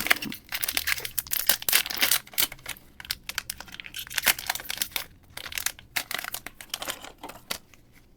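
Foil Pokémon TCG booster pack wrapper being crinkled and handled, a dense run of irregular crackles.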